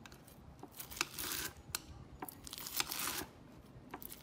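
Knife slicing through a bead-covered, avocado-shaped slime: crackling crunches in short bursts, with sharp clicks between them.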